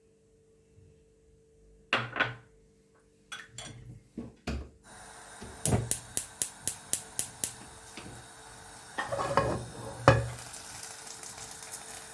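Metal utensils clattering against pans and dishes in separate knocks. About halfway through a steady frying hiss starts up, with a quick run of sharp taps, as the chicken wings go back into the hot oil.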